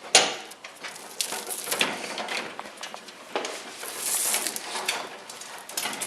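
Slit plastic insulation being peeled off a copper wire by hand: irregular scratching and crackling with scattered sharp clicks.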